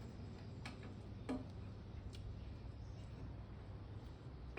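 A few light clicks and taps, four spread over the seconds, two with a dull knock, as the lower blade guide of an Einhell bandsaw is loosened for adjustment, over a faint steady low hum.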